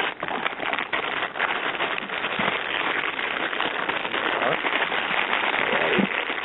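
The packaging of a phone charger being handled and opened, giving a dense, steady crackling rustle.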